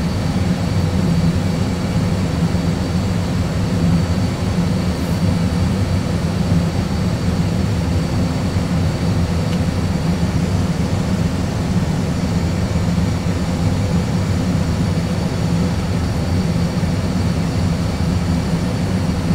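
Airbus A320 full flight simulator's cockpit sound: a steady, unchanging rumble of simulated jet engine and airflow noise, mostly low, with a faint steady whine on top, heard in a single-engine go-around climb.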